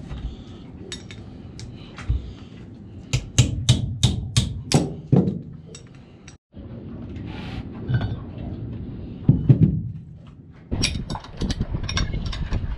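Spanner and steel bolts clinking against a bronze raw water pump as it is bolted together. A quick run of about six sharp metal clicks comes about three seconds in, and a busier stretch of clinks comes near the end.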